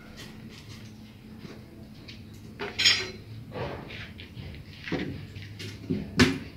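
A comal griddle being set in place on a wood-fired stove: a handful of separate clattering knocks and scrapes. The loudest comes about three seconds in and rings briefly, and a sharp knock follows near the end.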